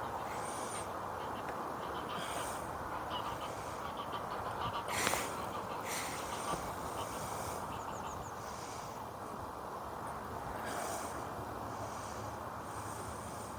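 Steady outdoor background hiss with faint high bird chirps and a few short, soft rushing noises every second or two.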